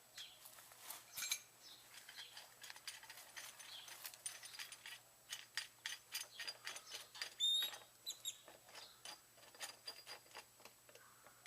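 Hand tools clinking and rattling in a quick, irregular run of light metallic clicks and taps, as of someone rummaging for a wrench. A brief high chirp about seven and a half seconds in.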